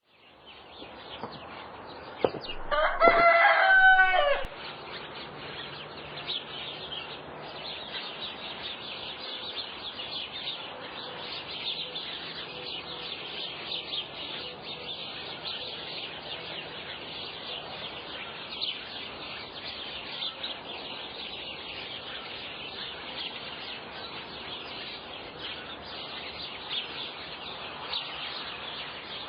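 A rooster crows once, loud, about three seconds in, over a steady background of faint, rapid high chirping that runs on after the crow.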